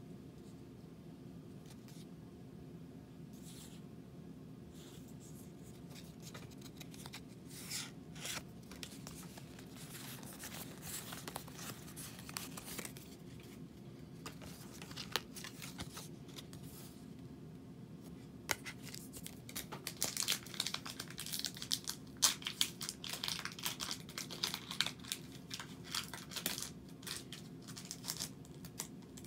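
Pokémon card pack's foil wrapper being torn open and crinkled by hand. It starts with a few scattered crackles, then turns into dense crinkling and tearing over the last third.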